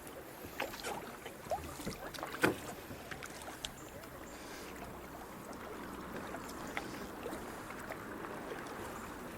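Kayak on a rocky creek: water sloshing and paddle splashes, with a few sharp knocks and clicks in the first few seconds, the loudest about two and a half seconds in, then a steady rush of water.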